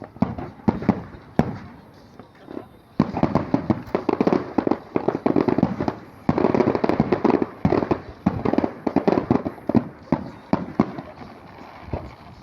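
Aerial fireworks bursting: scattered bangs at first, then from about three seconds in a dense barrage of rapid-fire bangs and crackling that eases off near the end.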